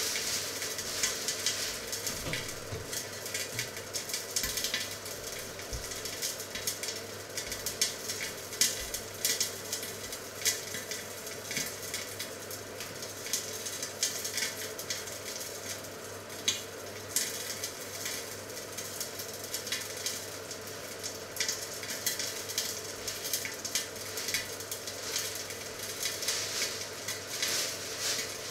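Chicken legs sizzling in a cast-iron grill pan, a steady frying hiss with many small crackles.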